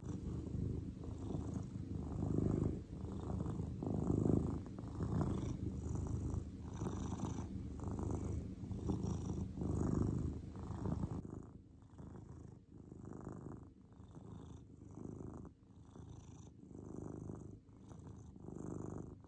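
A long-haired grey domestic cat purring, the purr swelling and fading with each breath in and out. It drops noticeably quieter a little past halfway.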